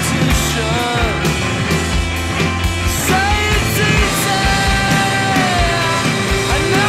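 Instrumental math rock from a full band: electric guitar playing sliding and bent notes over bass and drums, with regular cymbal hits.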